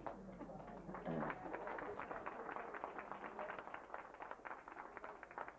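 Hand clapping: a ragged, irregular patter of many separate claps, with a brief voice about a second in.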